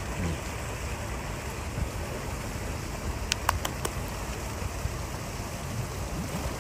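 Steady rush of water in a seal pool, with four sharp clicks in quick succession about three and a half seconds in.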